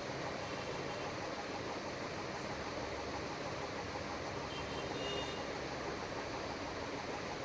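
Steady background noise, an even rushing hiss with no distinct events.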